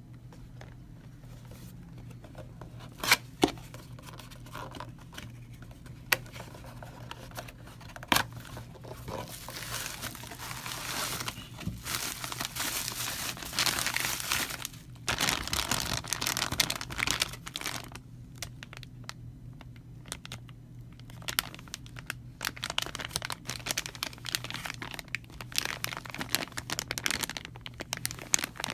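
A few sharp clicks as a cardboard parts box is handled and opened. Then bubble wrap and a clear plastic bag crinkle and crackle, loudest in the middle stretch, as the part is unwrapped.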